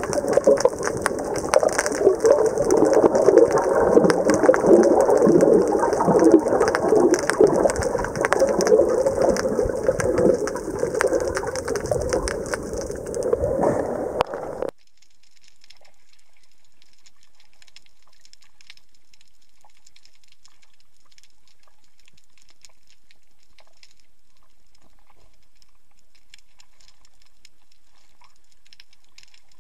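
Water swirling and rushing over an underwater camera, dense with small crackles and pops. It cuts off abruptly about halfway through, leaving only faint scattered crackling.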